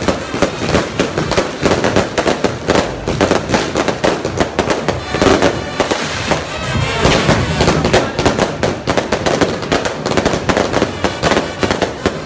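Firecrackers popping in rapid, irregular strings, with band music underneath.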